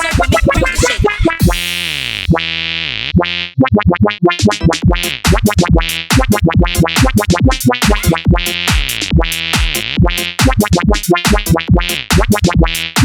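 Electronic dance music: a fast, steady drum-machine beat with synthesizer. About a second and a half in, the beat drops out for a held synth chord that sweeps down and back up, and the beat comes back in at about three and a half seconds.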